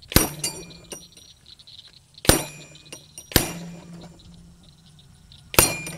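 Four .25 air rifle slugs striking steel spinner targets, each hit a sharp metallic clang that rings briefly, with light clinking from the swinging paddles in between.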